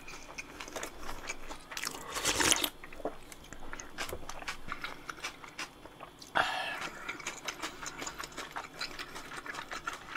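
Close-miked eating of cold naengmyeon noodles and dumplings: chewing with many small wet mouth clicks and smacks, and two louder slurping sounds, about two seconds in and again about six and a half seconds in.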